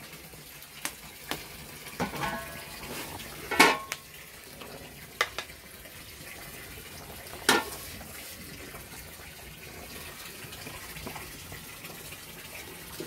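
Radish greens boiling in a large aluminium cauldron over a wood fire, a steady wash of boiling water, with a wooden paddle knocking against the metal pot several times as they are stirred; the loudest knock comes about three and a half seconds in.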